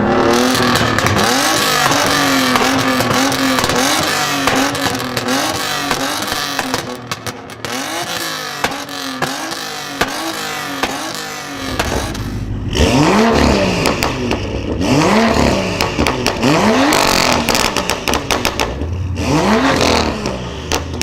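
Car engines with modified exhausts revving, with exhaust crackles and pops. First an engine is held at high revs and bounced up and down repeatedly, crackling throughout. Then, after a cut about twelve seconds in, another engine is blipped sharply several times, popping between the revs.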